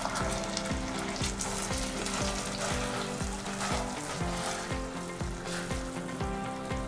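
Ketchup-based sauce sizzling and bubbling around a hamburg steak in a non-stick frying pan as a spatula stirs and spoons it, reducing it to a glaze. Background music with a steady beat plays underneath.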